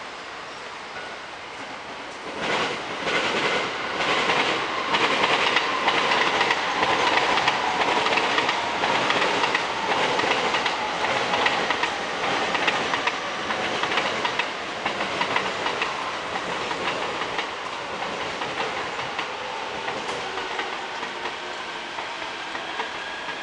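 A train passing, its wheels clacking rhythmically over rail joints. It starts about two seconds in and is loudest through the middle, with a tone that falls gently and, near the end, a rising whine.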